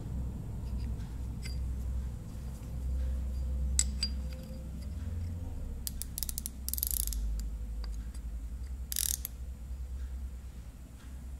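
Micrometer ratchet stop clicking as the spindle closes on a hardened steel parallel: a few single clicks, then two short runs of rapid clicking about six and nine seconds in, the ratchet slipping once the set measuring force is reached. A steady low hum runs underneath.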